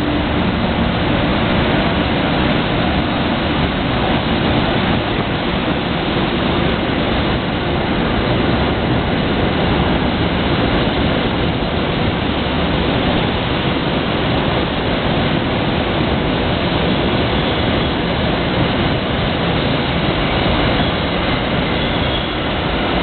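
NJ Transit Comet commuter coaches rolling past at low speed as a push-pull train departs, pushed by an ALP-44 electric locomotive at the rear: a steady, loud rumble of steel wheels on rail that does not change.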